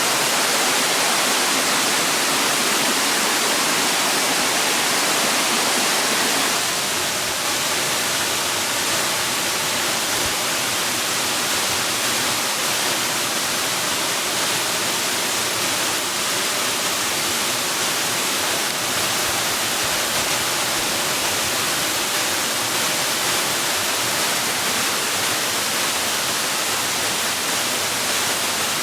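Rushing water: a steady, dense hiss of falling water that shifts slightly in tone and gets a little quieter about six and a half seconds in.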